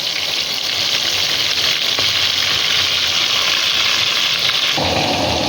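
Yogurt-marinated chicken pieces frying in hot ghee in a karahi, a steady sizzle. A fuller, lower layer joins near the end.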